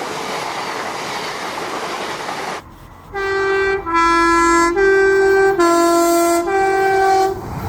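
Steady rushing noise for a couple of seconds, then a train horn sounds five long notes in a row, alternating between two close pitches.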